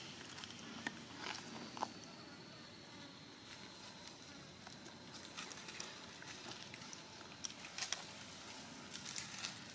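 Quiet outdoor ambience: a thin, steady, high insect tone sets in about a second in and holds until near the end, over scattered light rustles and clicks of macaques moving through grass and dry leaves.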